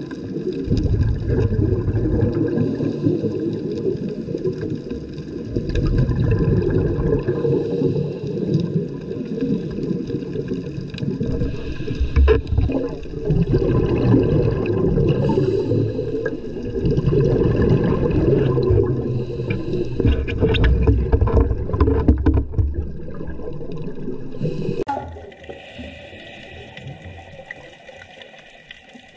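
Underwater water and bubble noise picked up through the camera housing: a low rumbling gurgle that swells and fades every few seconds, then falls to a quieter hiss near the end.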